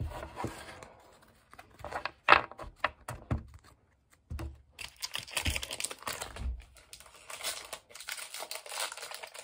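The wrapper of a Topps baseball card pack crinkling and being torn open, with a few sharp taps and bursts of rustling.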